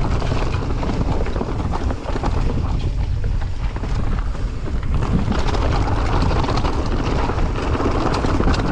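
Wind buffeting the microphone of a mountain bike rider's camera while riding down a rough downhill trail, with a steady low rumble and many small clicks and rattles of the bike over dirt and rocks.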